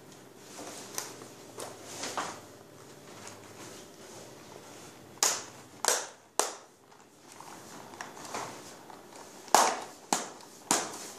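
Magnet strip of a pleated insect screen being pressed back into its channel in the frame rail after being turned round to reverse its polarity: soft handling rubs, then sharp snapping clicks in two quick sets of three as it seats.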